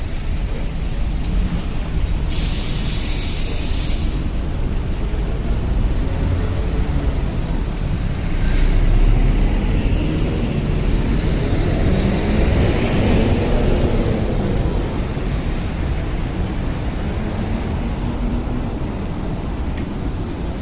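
Street traffic rumbling steadily as heavy vehicles pass. There is a short burst of air hiss about two seconds in, and the vehicle noise swells in the middle.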